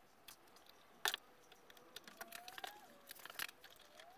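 Rubber brake-booster vacuum hose being worked off its fitting by hand: faint scattered clicks and handling noises, with a faint wavering squeak in the second half.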